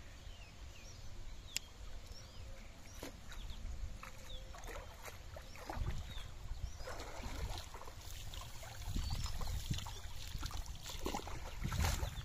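Shallow water sloshing and dripping as a wet cast net is gathered in by hand and a person wades through it, with irregular splashes that get louder in the second half. Small birds chirp faintly in the background.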